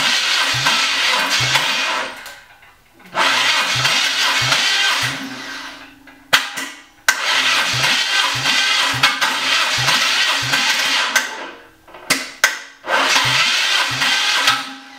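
A starter motor cranking a Nissan VQ35 V6 with its spark plugs out for a compression test, in four separate runs of a few seconds each, with a regular beat about twice a second as the engine turns over. Short clicks sit in the gaps between runs.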